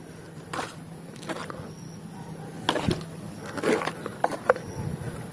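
Scattered light knocks and clatters of muddy toy vehicles being picked up and put into a basket, over a faint steady hum.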